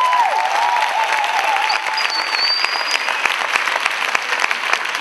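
Audience applauding, with voices cheering in the first couple of seconds and a brief high whistle about two seconds in.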